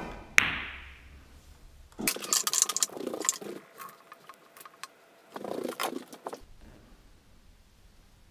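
A cue tip strikes the pool cue ball with a click, and a split second later the cue ball clacks sharply into an object ball. About two seconds in comes a stretch of clattering, with a shorter burst of noise a few seconds later.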